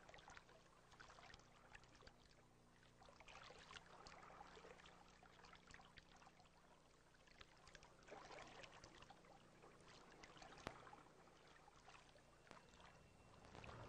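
Near silence: faint hiss and scattered crackle over a steady low hum, with one small tick near the middle.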